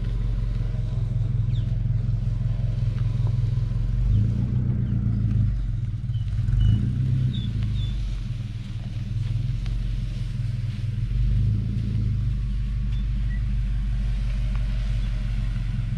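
A 1997 Toyota Prado's engine running slowly at low revs, a steady low rumble as it tows a boat trailer forward onto the beach.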